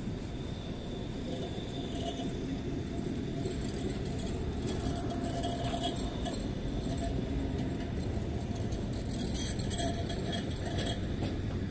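Tram rolling slowly along its track: a steady low rumble with faint metallic squeals and clicks from the wheels on the rails, which grow a little louder near the end.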